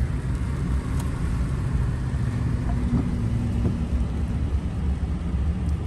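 Pickup truck running, heard from inside the cab: a steady low engine and road rumble.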